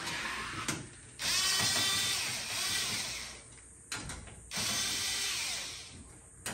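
Cordless power tool running in two bursts of about two seconds each, backing out the bolts that hold a pickup's front grille.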